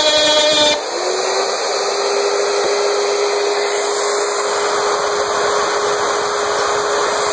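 A CNC router's spindle router and a shop-vacuum dust collector running together, a loud steady whine and rush. About a second in, the sound changes abruptly: a buzzing, many-toned pitch gives way to a single steadier tone that rises slightly as it settles.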